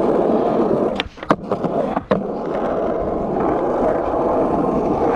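Skateboard with Bones urethane wheels rolling steadily over asphalt. About a second in the rolling breaks off with sharp clacks of the board popping and hitting the ground, and a harder clack comes about two seconds in before the rolling picks up again.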